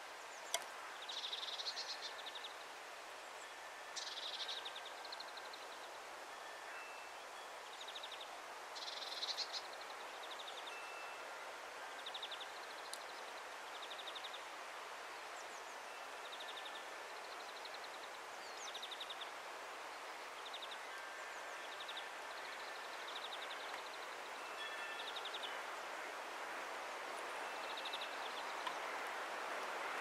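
Small songbirds calling: short rapid trills repeated every second or two, a few louder ones in the first ten seconds, over a steady outdoor hiss.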